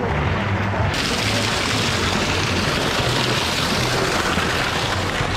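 Pool massage waterfall: a thick stream of water pouring from a wall spout and splashing into the pool, a steady rushing hiss that grows louder and brighter about a second in.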